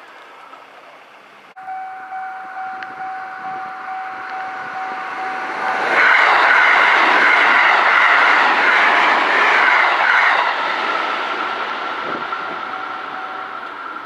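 A Sanyo Electric Railway 5030-series electric train passes over a level crossing. Its wheels clatter over the rails, loudest from about six to ten seconds in, then fading away. The crossing's warning bell keeps ringing behind it.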